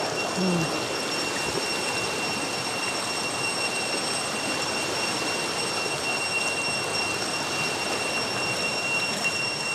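Steady rushing of a shallow, rocky stream, with a thin, steady high whine above it.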